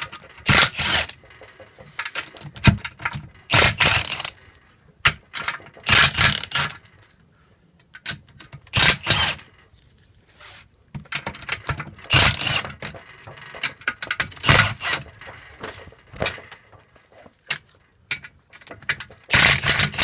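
Cordless Milwaukee FUEL brushless impact driver running in a dozen or so short bursts, each about half a second, breaking the transmission case bolts loose one after another.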